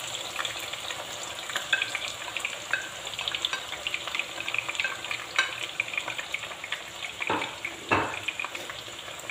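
Sliced red onions frying in hot oil in a frying pan, a steady sizzle full of small pops, with two louder short knocks near the end.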